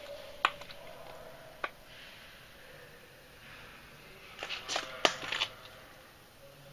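A few sharp clicks and knocks in a small room: one about half a second in, another a little later, and a quick cluster of several about four and a half seconds in; otherwise faint room tone.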